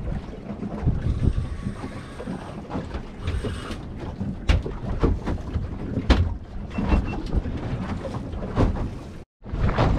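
Wind buffeting the microphone over the wash of water around a small boat, with a few sharp knocks as a fishing rod and gear are handled on the deck. The sound cuts out for a moment near the end.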